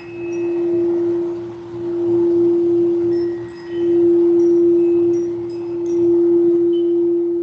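A singing bowl holds one steady, pure tone that swells and fades in slow waves, about every two seconds, as it is sung. Scattered high, brief tinkles of chimes sound over it.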